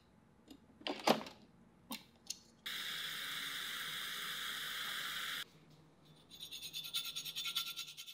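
A few sharp clinks of ice and glass, then a steady high hiss for about three seconds that cuts off abruptly, then the fine rapid crackle of carbonated tonic water fizzing over ice.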